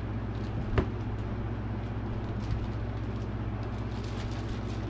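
Faint crinkling of a plastic bag being handled over a steady low hum, with one sharp click a little under a second in.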